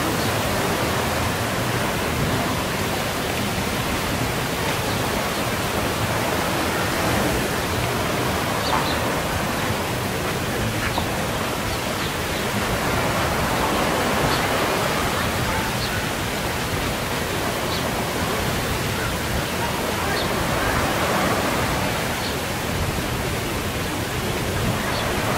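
Steady outdoor beachfront ambience: an even rushing noise, with faint short high chirps every second or two.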